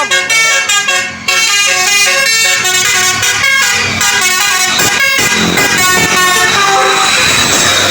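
A bus's multi-tone 'telolet' air horn playing a quick tune, its notes changing several times a second, giving way to a noisier wash near the end.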